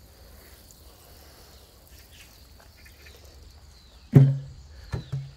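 Faint hiss of water spraying from a garden hose nozzle onto soil, over a steady chirring of crickets. About four seconds in, a knock and a short, low voiced sound from a man, with two more brief ones near the end.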